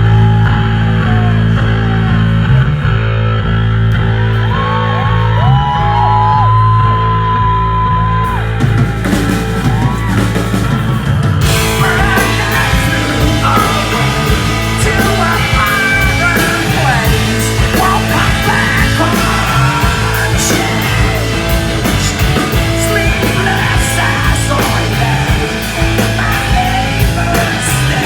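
Rock band playing live in a club, loud, with a heavy steady bass-led groove. About eleven seconds in the sound suddenly gets fuller and brighter as the rest of the band comes in.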